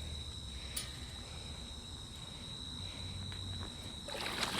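Crickets trilling steadily in a constant high chorus. Near the end, water begins to splash.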